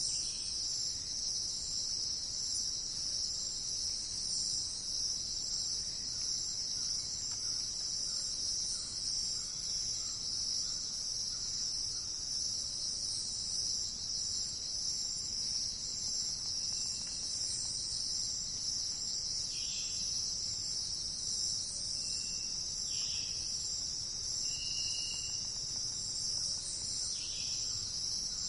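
Steady, high-pitched chorus of insects, like crickets, running unbroken, with a few short faint bird calls in the second half.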